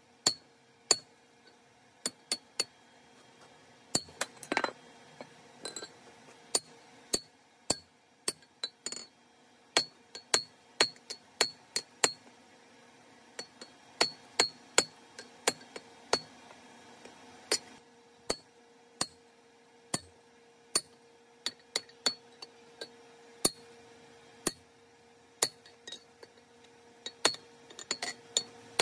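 Hand hammer blows on a hot punch driving the eye through a red-hot 4140 steel hammer head on an anvil: sharp metallic strikes with a bright ring, about one to two a second, with short pauses between runs.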